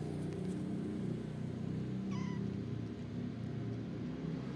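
A young kitten, about five weeks old, gives one short high mew about halfway through, over a steady low hum.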